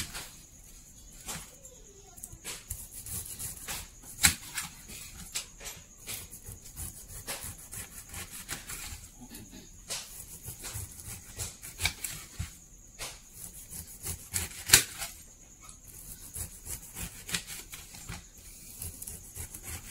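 Large kitchen knife cutting the rind off a whole pineapple, giving irregular crisp cuts and scrapes, with occasional sharper knocks of the blade against a metal tray; the two loudest knocks come about four seconds and fifteen seconds in.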